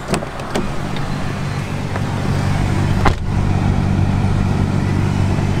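A car engine idling with a steady low hum. A few short clicks from the door handle and latch come near the start, and a car door slams shut about three seconds in.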